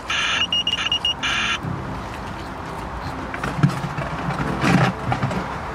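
Electronic carp bite alarm sounding a high steady tone in short broken runs for about the first second and a half. Softer handling noises and a couple of knocks follow.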